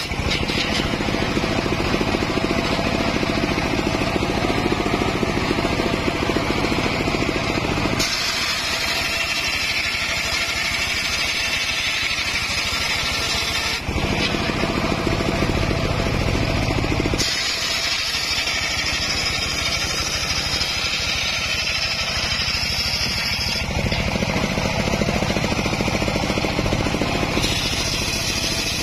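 Homemade circular saw bench ripping acacia planks lengthwise: the large blade runs steadily through the wood over the drone of its engine. The tone of the cutting changes abruptly several times.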